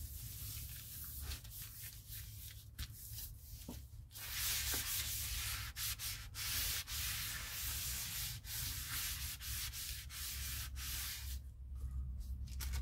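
Tissue paper being rubbed down by hand and with a soft crumpled wad over a painted gel printing plate and stencil, a dry papery scratching in repeated strokes, growing louder about four seconds in. This is the burnishing that pulls a gel print.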